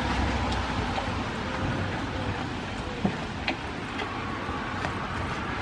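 Steady rain falling, an even hiss with a few scattered sharp drip-like ticks.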